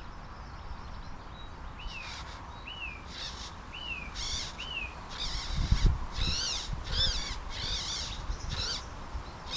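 Birds calling: four short falling chirps, then from about five seconds in a quicker run of harsher, higher calls, over a low rumble that swells near the middle.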